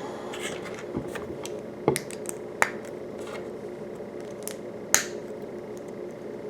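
Small plastic Lego pieces clicking as they are pressed together and handled. There are several sharp clicks at uneven intervals, with softer taps between them, over a steady low hum.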